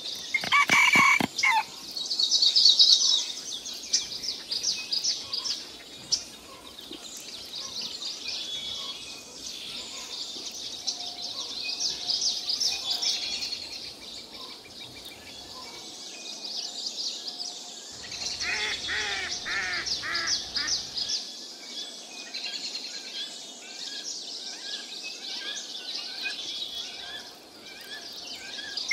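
Birds chirping and twittering throughout, with chickens calling loudly in the first second and again about two-thirds of the way through.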